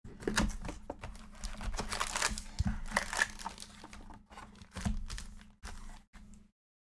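Hands opening a Panini Chronicles football card box and handling its wrapped card packs: irregular crinkling and tearing of the wrappers with sharp crackles, over a faint low hum.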